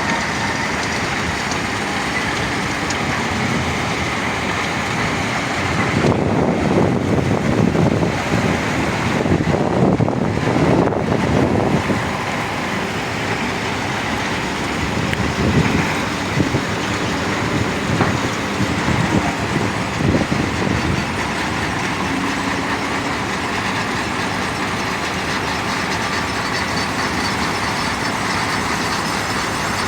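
Stone crusher running steadily as it crushes rock into ballast and quarry dust. Its noise grows heavier and more uneven from about six to twelve seconds in, and again around fifteen to twenty seconds.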